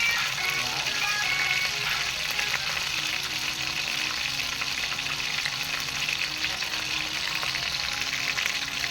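Food sizzling as it fries in a pan: a steady hiss with fine crackling throughout.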